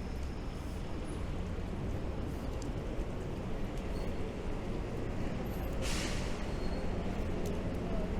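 Steady rain on a city street over a low rumble of traffic, with scattered small drips and ticks. About six seconds in comes a short hiss, like a vehicle's air brake or tyres on a wet road.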